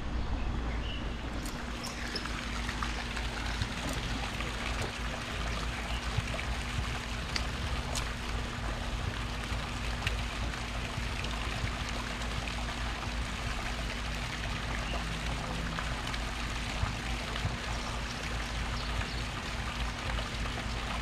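Water running and trickling steadily in a ditch, with a faint steady hum underneath that starts about a second and a half in.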